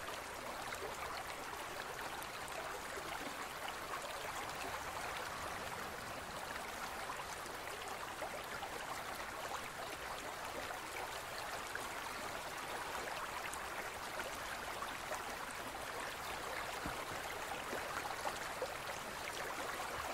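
Steady bubbling and trickling of aquarium water, from a stream of air bubbles rising through the tank.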